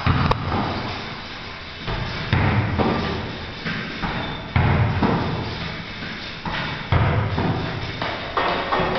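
Low thuds of feet landing on a mini trampoline, roughly one every second or two, with music playing underneath.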